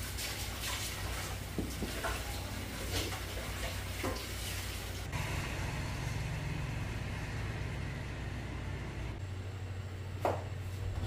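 Raw chicken pieces pressed and turned in a tub of flour by hand: soft rustling and patting over a steady low hum, with one sharp knock near the end.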